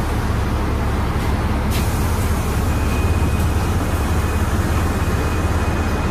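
Cabin sound of a NefAZ 5299 low-floor city bus at a stop and pulling away: a steady low engine and road rumble, with a short air hiss about two seconds in and a faint thin whine in the second half.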